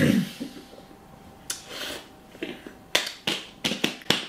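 Wet lip smacks and mouth clicks from eating a mouthful of squirty whipped cream. There is a loud smack at the start, another about a second and a half in, then a quick run of about five sharp smacks near the end.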